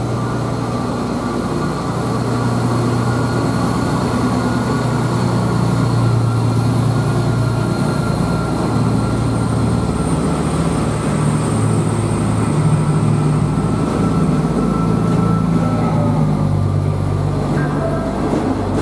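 Renfe Class 599 three-car diesel multiple unit pulling out of the station, its diesel engines running under power with a steady low drone that shifts pitch a few times as the cars roll past, over a faint thin high whine.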